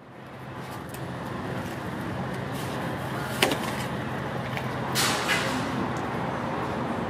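Street traffic ambience fading in: a steady low hum under a haze of road noise. There is a sharp click about three and a half seconds in and a brief swell of noise about five seconds in.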